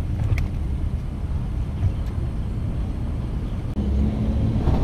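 Steady low rumble of street traffic, with a vehicle engine growing louder near the end.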